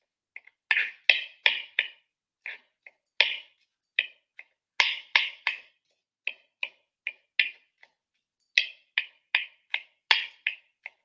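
Chef's knife mincing garlic on a plastic chopping board: quick knocks of the blade on the board, about three a second, in short runs with brief pauses between them.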